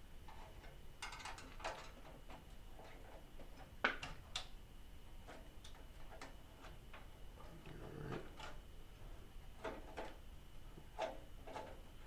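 Screwdriver working the screws of a PC case's rear expansion-slot brackets: scattered light metal clicks and ticks, the sharpest about four seconds in.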